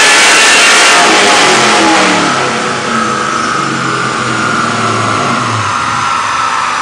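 An engine on a Dynojet chassis dynamometer at high revs, near the end of a full-throttle pull. About two seconds in it gets quieter as the throttle closes, and the engine winds down with a steadily falling pitch.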